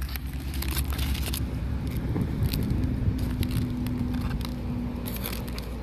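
Aluminium foil crinkling in scattered crackles as a foil packet of cooked fish is opened, over a steady low rumble.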